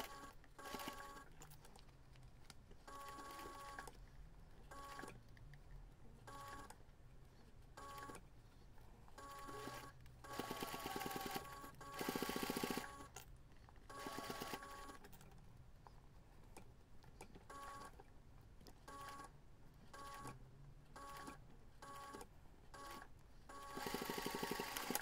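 Electric domestic sewing machine stitching bias binding onto fabric in short stop-start bursts, its motor giving a steady whine with the needle tapping rapidly. The longest runs of stitching come about ten to thirteen seconds in and just before the end.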